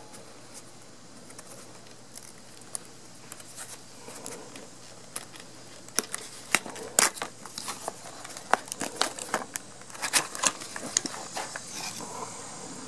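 Paperboard retail box being opened by hand: the flap pried loose and the packaging rustling and crinkling, with scattered sharp crackles that get busier about halfway through.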